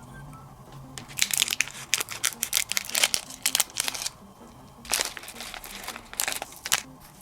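Bursts of sharp crackling and crunching from something being handled, starting about a second in and coming in quick clusters, over soft background music.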